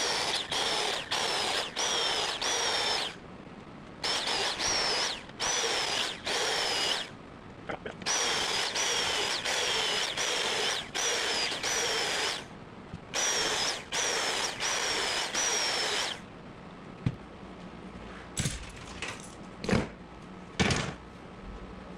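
Electric drill fitted with a homemade pipe plug cutter boring holes through rubber snowcat track belting. It runs in many short bursts of about half a second, each with a high whine that dips as the cutter bites and recovers as it cuts through. The drilling stops about 16 seconds in, followed by a few sharp knocks and clanks of metal tools being handled.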